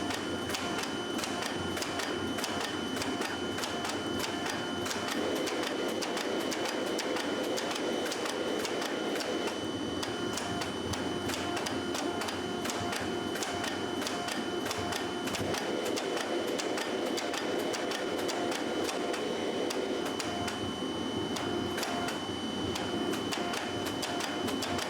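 A motor-driven machine running steadily, with a constant high whine and fast, irregular clicking over it.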